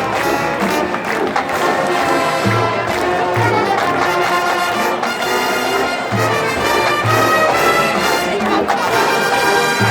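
Marching band playing, its brass section holding sustained chords, with low bass notes coming in pairs about a second apart every few seconds.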